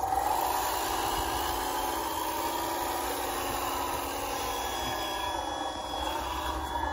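1/14 scale RC hydraulic wheel loader running, its electric motors whining in a tone that drifts up and down in pitch as it drives and pushes snow with its box plow.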